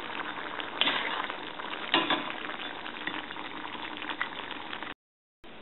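Bean-and-yam curry bubbling at a simmer in a stainless steel pan while a spoon stirs it, with a few sharp clicks of the spoon against the pan. The sound cuts out briefly near the end.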